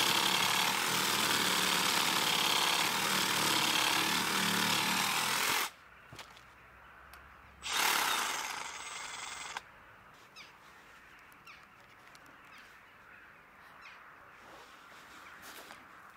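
Makita DJR187 18V brushless cordless reciprocating saw cutting through a log, stopping about five and a half seconds in. It runs again for about two seconds near the middle, then only a few small handling clicks follow.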